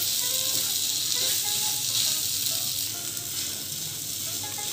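Grated boiled potato and spices sizzling steadily in butter in a nonstick frying pan while a wooden spatula stirs and mixes them.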